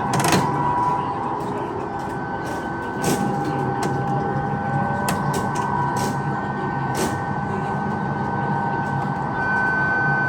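Train running on rails: steady noise with a faint steady whine and scattered sharp clicks.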